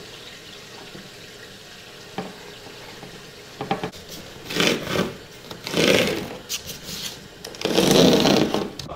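Pencil scratching along the edge of a cardboard template on textured drywall as the outline for an in-wall speaker cut-out is traced, in three or four short strokes, the last and loudest near the end.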